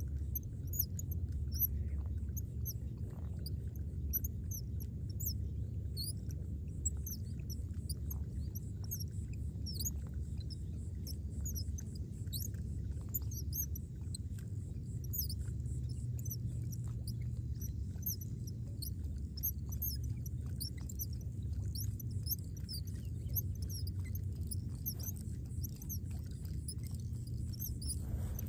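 Many short, high bird chirps throughout, over a steady low rumble.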